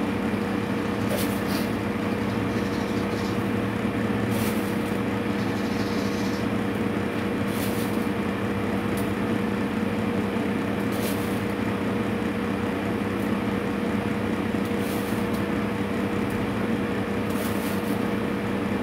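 Steady hum and whir of a running electric motor, even in level, with a faint light click every few seconds.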